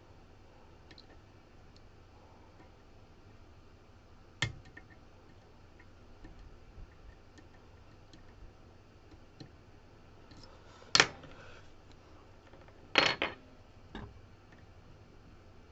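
Lock-picking tools working in a CX5 lock: faint scattered ticks, with four sharper metallic clicks, two of them the loudest, about 11 and 13 seconds in.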